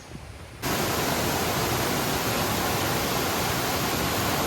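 Steady rushing of a waterfall, an even loud hiss of falling water that cuts in abruptly about half a second in.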